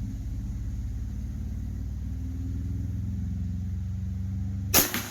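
A single shot from an AEA Challenger .457 big-bore air rifle near the end, a sharp crack followed a moment later by a smaller second one, over a steady low engine-like hum.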